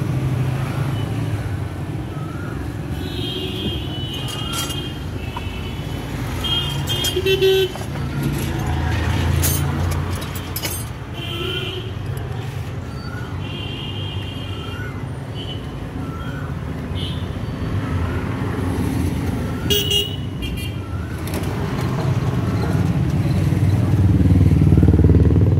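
Street traffic: a steady rumble of passing vehicles, swelling twice, with repeated short horn toots and a few sharp clicks.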